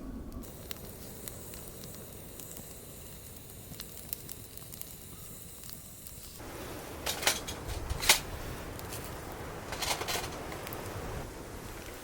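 Wood campfire burning with a soft crackle, then louder in the second half with several sharp pops, the loudest about eight seconds in.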